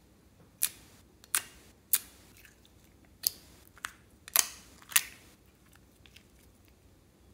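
Clear slime being pressed and poked with the fingers in a glass dish, giving a run of sharp pops and clicks, about seven in four seconds, a few trailing off in a short wet squish.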